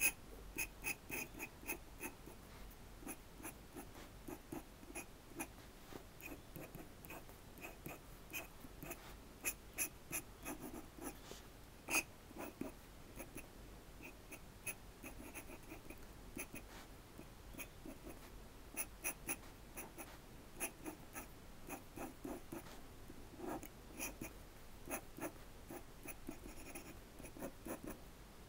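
Steel nib of a dip pen scratching across drawing paper in quick, irregular short strokes, with one sharper tick about twelve seconds in.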